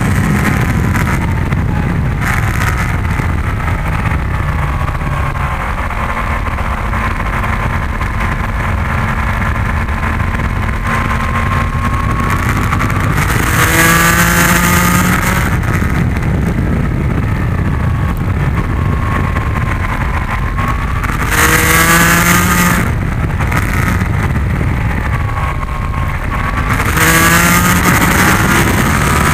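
Yamaha MT-10's crossplane inline-four engine at track speed, its revs falling and rising through corners, with three hard bursts of acceleration, about halfway, about three-quarters of the way in and near the end, where the revs climb steeply and the engine gets louder. Heavy wind rush on the microphone underneath throughout.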